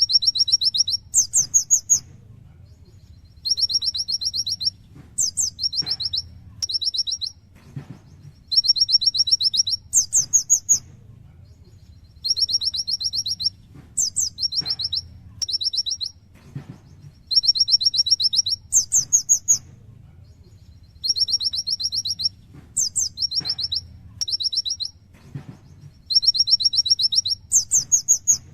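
Kolibri ninja sunbird singing vigorously: runs of rapid, high trilled notes followed by sharper, even higher notes. The same phrase pattern repeats about every four and a half seconds, as in a looped training recording.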